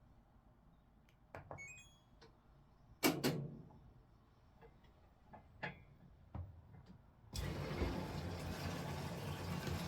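LG top-loading washing machine: a few clicks and knocks, one louder knock about three seconds in, then about seven seconds in the machine starts up suddenly and runs steadily with a low hum.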